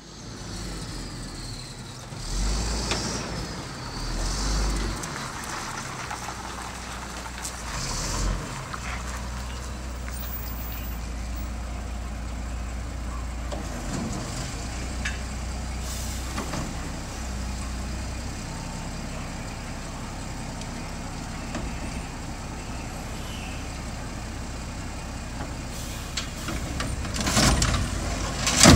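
Mack front-loader garbage truck's diesel engine running steadily, with air-brake hisses several times in the first eight seconds and a loud clatter near the end.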